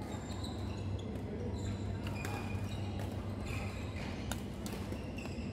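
Badminton rally: sharp clicks of rackets striking the shuttlecock several times, with short squeaks of court shoes on the sports-hall floor, over a steady low hum.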